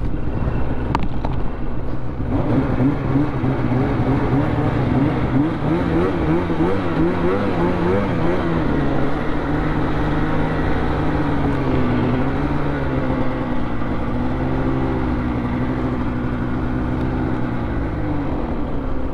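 Polaris SKS 146 snowmobile's two-stroke engine running under way. Its pitch rises and falls with the throttle for several seconds, then holds steady at cruising speed, and it eases off near the end.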